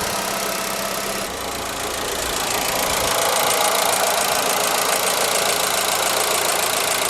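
ZAZ Forza's petrol engine idling with a rapid, even metallic ticking under the hood. The owner takes the ticking for noisy hydraulic lifters or injectors.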